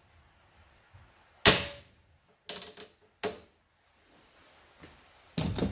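Hand-tool work on a strap fitting: one sharp metallic snap about a second and a half in, a few shorter clicks and knocks, then a quick clatter near the end.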